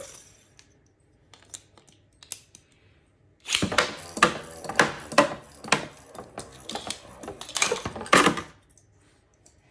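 Plastic Beyblade spinning tops clattering in a plastic battle stadium: a few scattered clicks, then about five seconds of dense, irregular clacking and knocking that stops suddenly.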